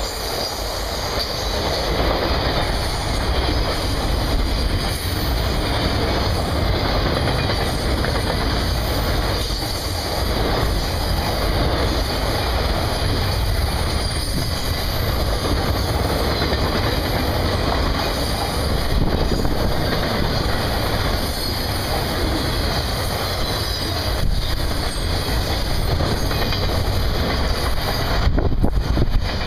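Circus train's passenger cars and trailer-laden flatcars rolling past at close range: a steady loud rumble and clatter of steel wheels on the rails. Near the end the noise thins as the last car clears.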